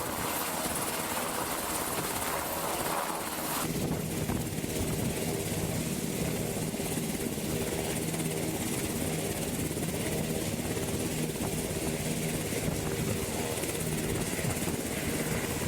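Helicopter rotor and engine running steadily. About three and a half seconds in the sound shifts abruptly, becoming lower and fuller.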